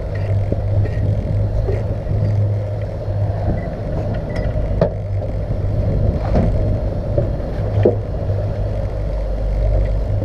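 Twin outboard motors running steadily with the boat under way, over a wash of wind and water noise, with a few short knocks near the middle.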